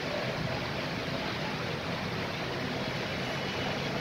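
Steady noise of rain and car traffic on a wet street, with tyres swishing through water on the road.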